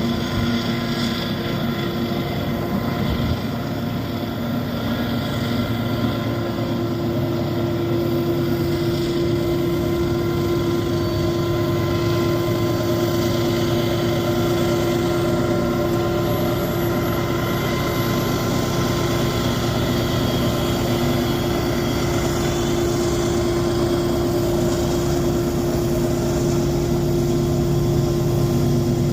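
Diesel locomotive engines working at full throttle on a climbing grade, a loud, steady drone with a fixed pitch that swells slightly after a few seconds.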